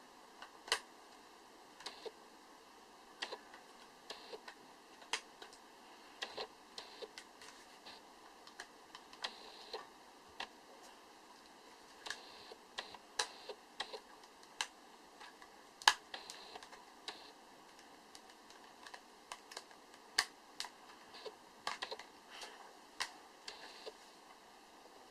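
Irregular light clicks and taps of a new phone and its packaging being handled, roughly one or two a second, with one sharper click about two-thirds of the way through.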